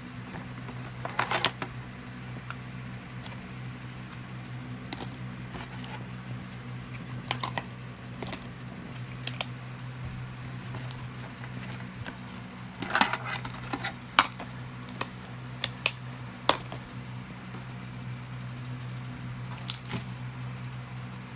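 Slime being pressed and stretched by hand, giving scattered sharp pops and short crackles, with a cluster of them about a second in and a busier run around thirteen to seventeen seconds in. A steady low hum runs underneath.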